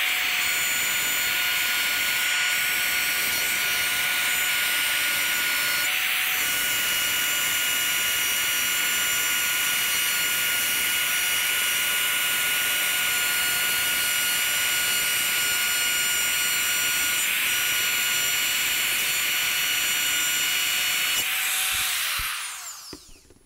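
Electric router with a 3/4-inch dado bit running at full speed and cutting a shallow first-pass dado in wood: a loud, steady high whine with cutting noise. The motor is switched off near the end and winds down with falling pitch.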